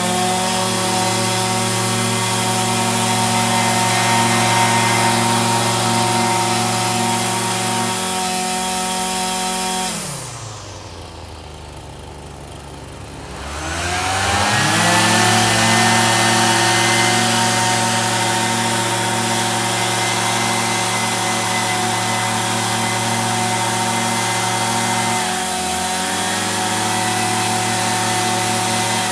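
A small two-stroke engine of a handheld power tool runs at high revs. About ten seconds in it drops to idle for three or four seconds, then revs back up and holds high, easing off slightly near the end.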